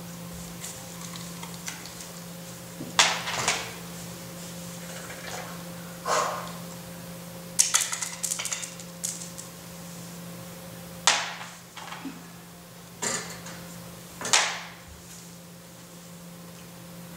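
Pieces of dry dog kibble dropped onto a hardwood floor, clattering and scattering in short rattles about eight times, over a low steady hum.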